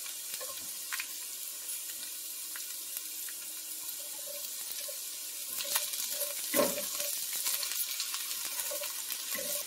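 Zucchini pieces sizzling in a hot oiled frying pan with potatoes, a steady high hiss, with a few knocks in the second half, the loudest a little after halfway.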